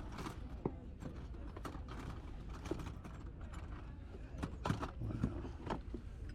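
Irregular clicks and knocks of small hard objects being handled, with a cluster of louder knocks a little past the middle, over a steady low rumble.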